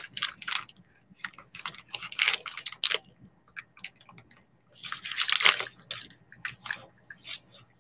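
Thin plastic packaging bag crinkling and rustling as it is handled, in irregular short bursts with scattered small clicks.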